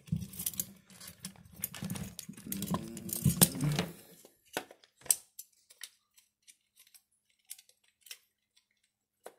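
Light clicks and clinks of small metal vacuum motor parts being handled and worked into place. For about the first four seconds they come thickly over a low hum, then they thin to scattered single clicks.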